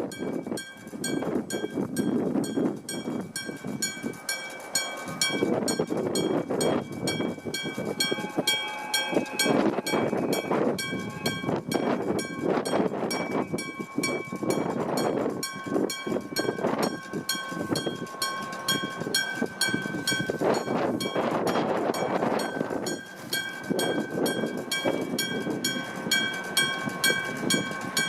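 Level-crossing electric bell, a gong struck over and over by an electric hammer, ringing in a rapid, even rhythm while a freight train rumbles and clatters through the crossing; the bell is partly drowned by the train in the middle.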